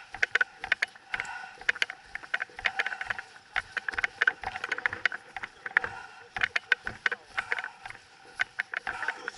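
Irregular crunching and clicking, several sharp little sounds a second, over a faint hiss.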